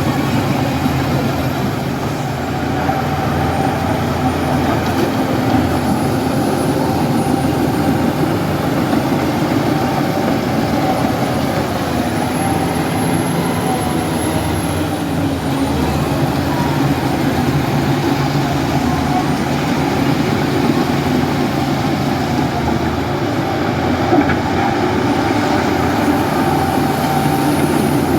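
Heavy diesel engine running steadily at a constant pitch, with a faint high whine over it.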